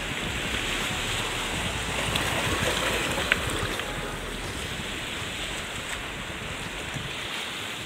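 Sea surf washing on the shore, a steady rush that swells a little two to three seconds in, with one sharp click about three seconds in.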